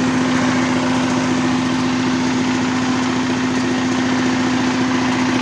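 Corn sheller machine running steadily under its small engine, a constant hum with a fast even chatter.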